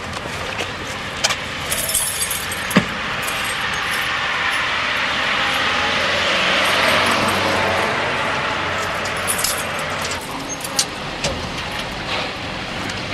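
A car going by on the road: its engine and tyre noise builds over a few seconds, peaks about halfway through and fades away, with scattered light clicks throughout.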